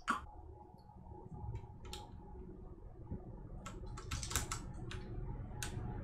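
Plastic keycaps clicking as they are pressed down onto the Cherry MX Brown switch stems of a mechanical keyboard: scattered sharp clicks, one at the start, one about two seconds in, and a quick run of several around four seconds.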